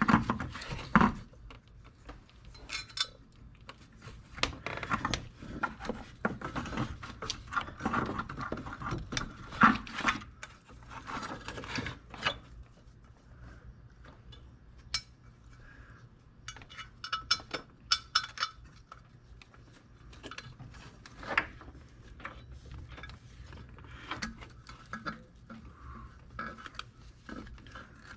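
Metal bolts and hand tools clinking, clicking and rattling in irregular bursts as exhaust manifold bolts are fitted to a Ford Focus engine.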